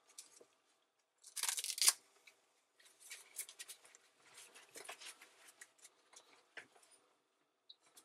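Hands-on handling noise in a small room: a louder scrape or rub about a second and a half in, followed by many short scratches, rubs and small clicks.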